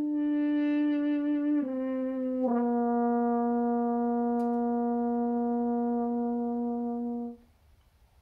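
Natural horn (valveless, a copy of a French orchestra horn after Halari, crooked in E-flat) playing the closing phrase of a piece: two shorter notes stepping down into a long held final note, which stops cleanly near the end.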